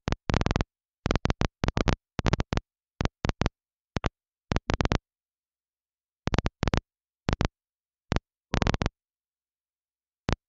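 Short crackling bursts of static from an air traffic control VHF radio feed, the squelch opening and closing in irregular clusters with dead silence between them.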